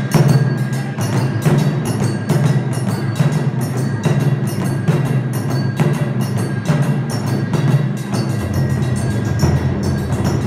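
Japanese taiko drums played by an ensemble with wooden sticks: a fast, driving rhythm of sharp strikes over a deep drum body. About eight seconds in, a deeper low rumble joins.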